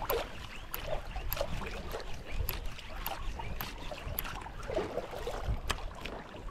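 Sea water lapping and splashing against a small boat's hull, with wind on the microphone and a few light clicks scattered through.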